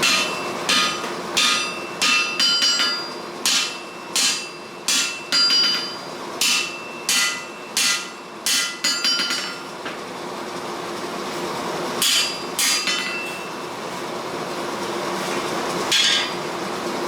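Hand hammer blows on hot steel being forged, each strike ringing metallically: a run of about fifteen blows at a little over one a second, a pause, two more, then a last one near the end. A steady hum runs underneath.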